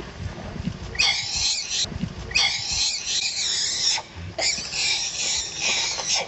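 Long-tailed macaque giving three long, shrill screams in a row, starting about a second in: fear screams from a frightened female monkey.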